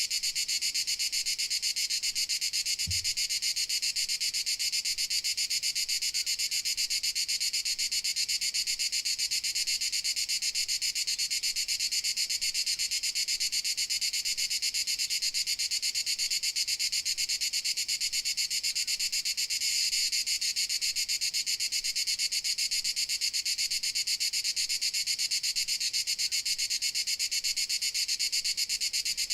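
Crickets chirring in a continuous, steady, high-pitched chorus of rapid pulses.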